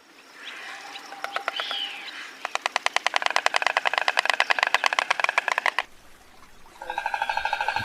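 Stork clattering its bill: a rapid, even run of dry clicks, about a dozen a second, lasting some three seconds. Faint bird chirps come before it, and music starts near the end.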